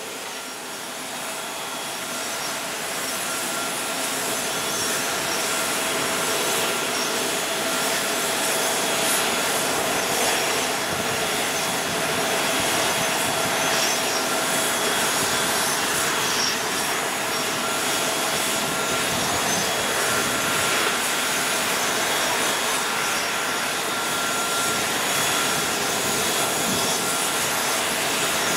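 Steady jet-turbine noise from a parked Boeing 777-200: an even rushing hiss with a steady high-pitched whine, rising over the first few seconds and then holding level.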